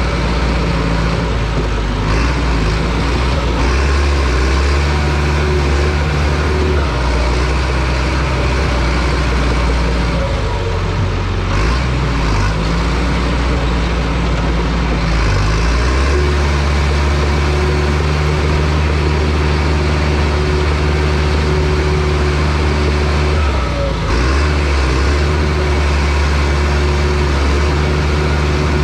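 Heavy diesel engine of a John Deere bulldozer running steadily under load. Its pitch dips and shifts between about ten and sixteen seconds in, and drops briefly near the end before settling again.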